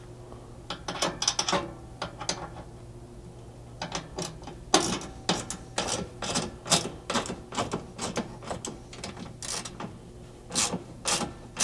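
Hand ratchet clicking in short, irregular runs of strokes as the hard top mounting bolts are tightened, with a pause a couple of seconds in.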